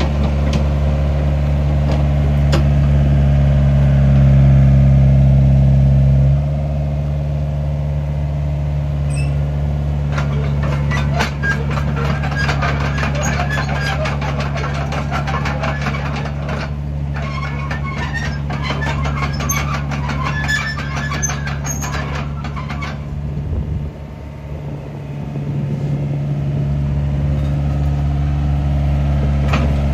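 Takeuchi TB175C midi excavator's diesel engine running, its note stepping down about six seconds in and dipping briefly around twenty-four seconds. From about ten to twenty-three seconds, the steel tracks clank and squeak as the machine travels over concrete.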